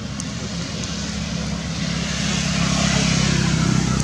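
Steady engine hum of a motor vehicle passing, growing louder through the second half.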